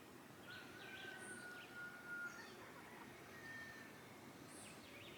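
Faint birdsong outdoors: scattered short chirps and a thin whistled note held for about two seconds, over quiet background ambience.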